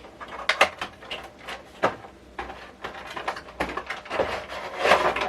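Cardboard box and plastic insert being handled as a Funko Pop vinyl figure is taken out, with scattered clicks, taps and rustles and a longer rustle near the end.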